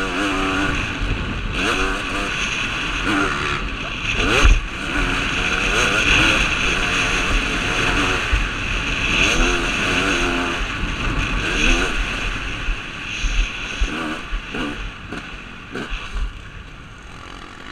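KTM 250 SX two-stroke motocross engine revving hard, its pitch rising and falling over and over through the gears, with a sharp thump about four and a half seconds in. The engine grows quieter near the end.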